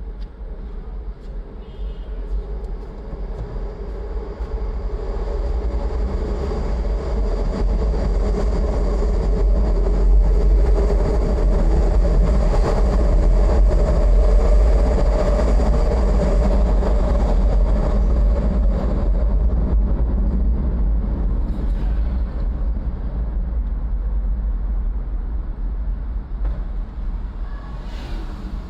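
An elevated train passing, growing louder to a peak about halfway through and then fading away, over a steady low rumble.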